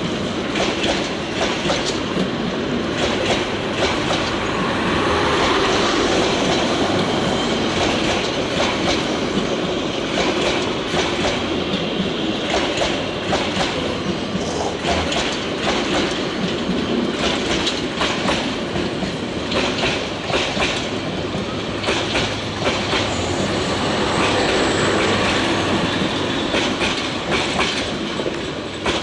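Passenger coaches of a passing intercity train rolling by close at hand: a steady rumble with rapid clickety-clack of wheels over rail joints, growing a little quieter near the end as the guard's van at the rear goes by.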